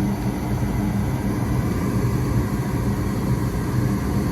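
Goodman gas furnace running with its burners firing and blower on: a steady low hum over an even rush of air.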